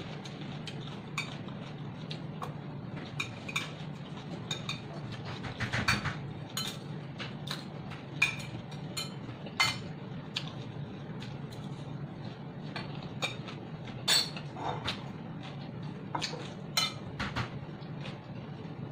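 Metal chopsticks and a spoon clinking and scraping against a glass dish in irregular, sharp clicks, some with a brief ring.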